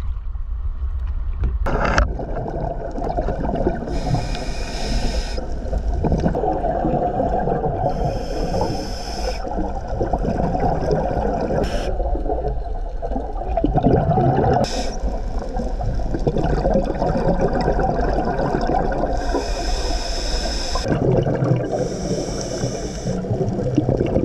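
Underwater sound picked up by a diver's action camera: a steady, muffled rush of water, broken four times by short hissing spurts of exhaled scuba regulator bubbles, each lasting a second or so. Two brief sharp clicks come in the middle.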